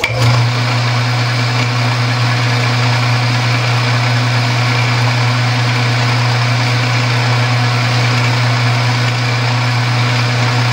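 Old metal lathe's motor starting up and then running steadily with a strong, even hum, the chuck and work spinning.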